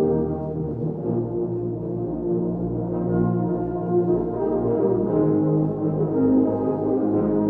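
Tuba and euphonium ensemble playing held low brass chords. A louder chord is released right at the start, then the chords move on every second or so.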